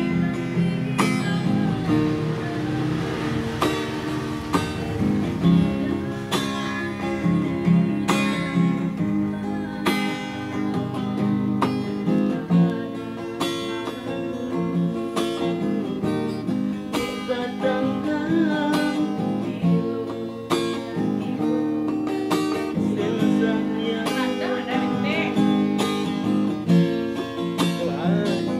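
A woman singing a song, accompanied by a strummed acoustic guitar keeping a steady rhythm.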